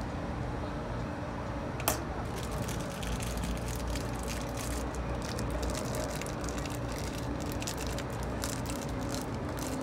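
Metal spatulas clacking and scraping on the frozen steel plate of an iron-plate rolled ice cream maker. One sharp clack comes about two seconds in, followed by a run of light, irregular scrapes and ticks over a steady hum.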